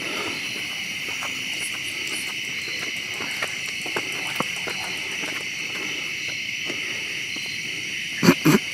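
Steady insect chorus, with faint scattered footsteps of people climbing steps. Near the end come two loud knocks in quick succession.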